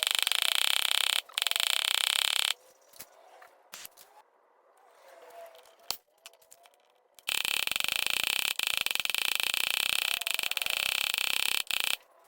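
Steady harsh scraping noise from work on a dented refrigerator door panel, cutting off abruptly about two and a half seconds in and starting again abruptly about seven seconds in.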